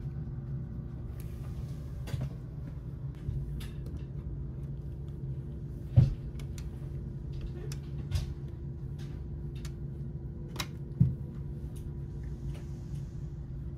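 Scattered clicks and knocks of a push-button desk phone being handled as its keys are pressed and the handset is picked up, with a louder knock about six seconds in and another around eleven seconds in, over a steady low room hum.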